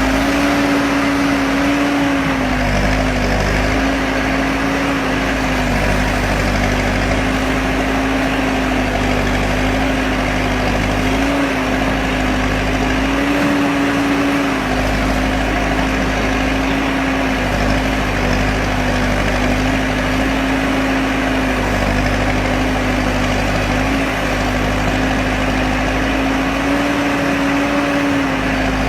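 Bull backhoe loader's 4.76-litre Kirloskar diesel engine running steadily, its revs rising briefly a few times.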